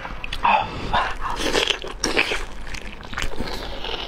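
Close-up mouth sounds of someone eating octopus: sucking, biting and chewing, heard as a run of short smacks and clicks.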